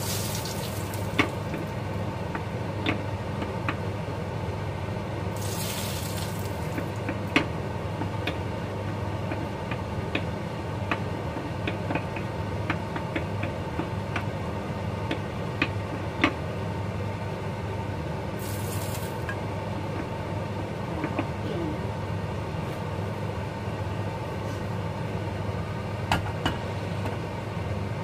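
Hot frying oil poured from a saucepan onto raw chili-garlic sambal in a clay mortar, sizzling steadily with scattered crackles. There are three short louder hissing surges: one at the start, one about six seconds in and one near twenty seconds in.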